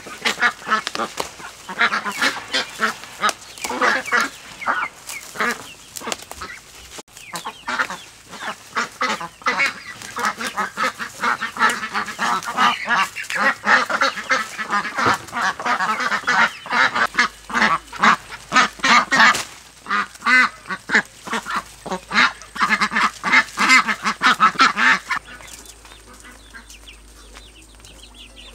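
A flock of farm waterfowl calling continuously in rapid, overlapping honks and quacks, which fall away about 25 seconds in.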